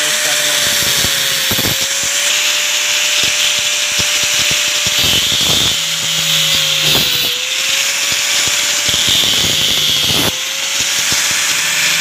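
Electric angle grinder with a thin cutting disc cutting through the copper windings of a table fan's motor coil. The motor's steady whine sags slightly in pitch under load and recovers about three times, over a bright grinding hiss.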